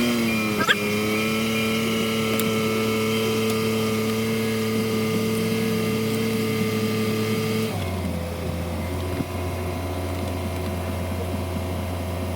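The 2024 Toyota Sequoia's twin-turbo V6 hybrid engine starts and flares up, then runs at a steady fast idle. About eight seconds in, the idle steps down to a lower, steady speed.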